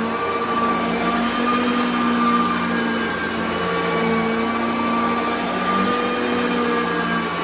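Hoover Concept upright vacuum cleaner running steadily while being pushed over carpet, its motor hum wavering slightly in pitch as the load changes.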